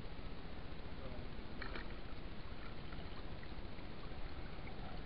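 Shallow sea water sloshing and lapping steadily around a wader, with a brief rattle about one and a half seconds in.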